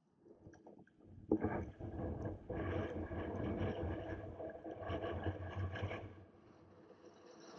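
Water splashing and rushing around a sea kayak as it is paddled, starting with a sharp splash about a second in, swelling and easing in strokes, then dying away near the end.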